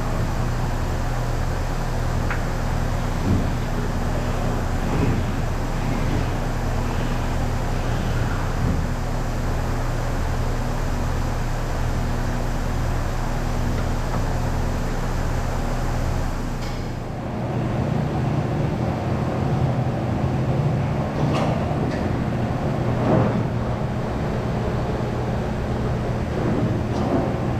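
Steady low mechanical hum with a few short knocks; the hum changes in character about two-thirds of the way through.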